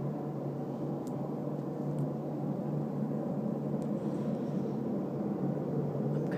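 A steady, deep roar like a jet engine, its source unidentified, holding an even level throughout, with a few faint clicks over it.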